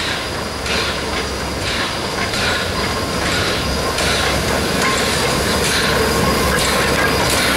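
Small steam tank locomotive passing slowly at close range, its exhaust chuffing in a slow, repeated beat over the running noise of the engine and carriages, growing louder as it draws level.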